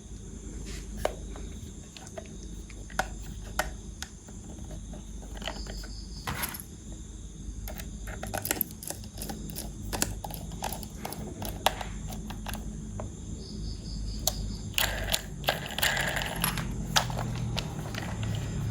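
Irregular light clicks and taps of hard plastic toy parts being handled and fitted together, with a short rustle about fifteen seconds in.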